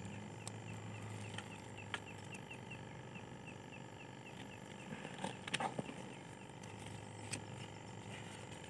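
A campfire of dry sticks crackling with a few sharp pops. Through the middle, a small animal gives a run of short, even, high chirps, about five a second.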